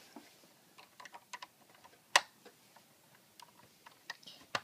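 Plastic Lego pieces being handled: scattered light clicks and taps, with one sharp click about two seconds in and another near the end.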